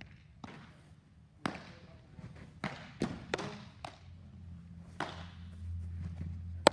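Baseball smacking into a catcher's mitt with a single sharp pop near the end as a curveball arrives, after several fainter knocks and thuds of balls echoing around a large indoor training hall.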